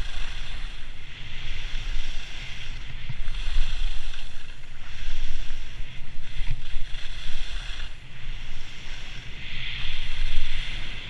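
Skis sliding and carving on hard-packed snow, a scraping hiss that swells and fades every second or two with the turns, over a steady rumble of wind on the action camera's microphone.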